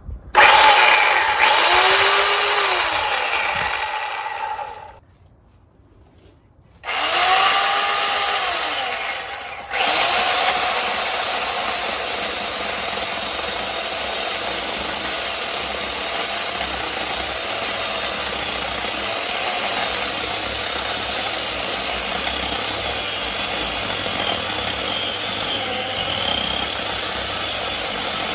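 WORX electric chainsaw motor running in two short bursts, its pitch swelling and sagging, with a pause of about two seconds between them. About ten seconds in it settles into a steady run as the chain saws through wood.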